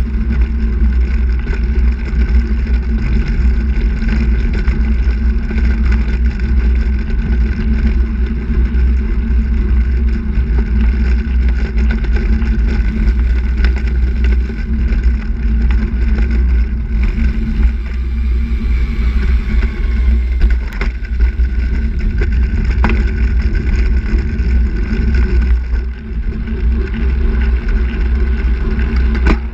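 Steady low rumble of wind buffeting the microphone and a handbike's tyres rolling on asphalt, heard from a camera mounted low on the moving handbike.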